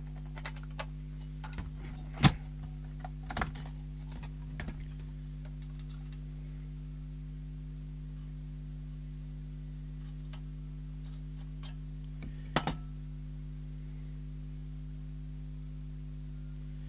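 A few sharp clicks and taps of small tools and parts being handled on a workbench, the loudest about two seconds in and another pair near the end, over a steady electrical hum.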